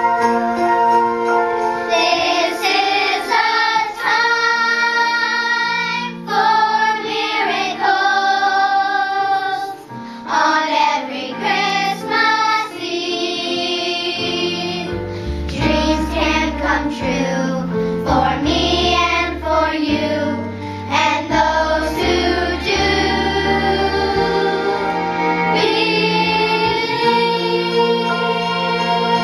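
Fifth-grade children's choir singing in unison over an instrumental accompaniment. The accompaniment plays alone at first, and the voices come in about two seconds in.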